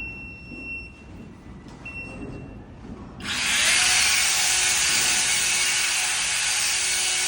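Battery-powered garden cutting machine switched on: two short high tones, then about three seconds in its electric motor starts abruptly and runs at a steady high-speed whir.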